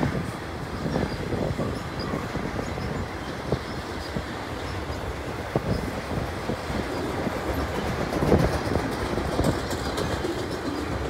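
Loaded freight flatcars rolling past on the track: a steady rumble of steel wheels on rail, with scattered sharp clicks as the wheels cross rail joints.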